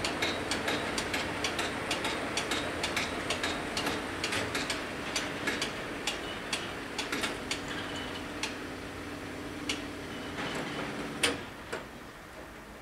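Rapid, irregular ticking and clicking at a railway level crossing just after a train has passed, growing sparser and fainter, over a low steady hum that stops with one sharp click about eleven seconds in.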